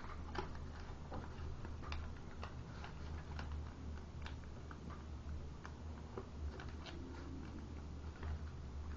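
A sheet of origami paper being folded and creased by hand: irregular small crackles and taps from the paper, over a steady low hum.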